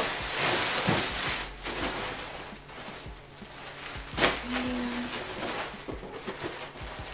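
Clear plastic poly bags around new clothing crinkling and rustling as the garments are lifted and turned over, loudest in the first couple of seconds, with one sharp snap about four seconds in.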